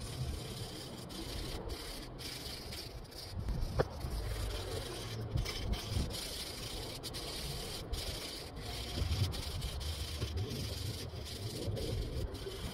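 Sandpaper rubbed by hand along the wooden stock of a Riffe Euro speargun: a steady scratchy rasp of repeated strokes with brief pauses between them, over a low rumble.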